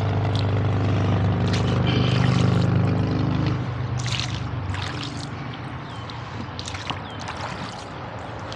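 Oars dipping and pulling through river water, splashing and dripping in pairs of strokes about every two and a half seconds. Under the first part a steady engine drone is the loudest sound, fading away after about three and a half seconds.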